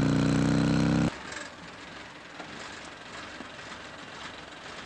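Motorcycle engine running at speed, its pitch rising slowly as it pulls, cut off suddenly about a second in. After that, a much quieter steady background noise.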